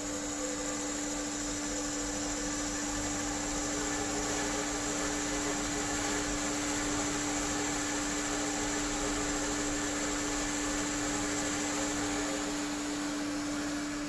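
Kasto Kastotec AC 3 metal-cutting band saw running, a steady machine hum with one constant low-mid tone over even noise.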